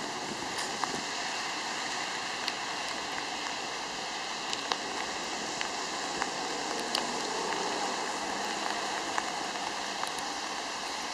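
Steady rain falling, an even hiss with scattered sharp drip ticks.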